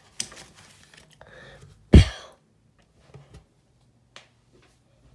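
Paper pages of a hardcover comic book being turned by hand with a light rustle, then a single dull thump about two seconds in, followed by a few faint taps.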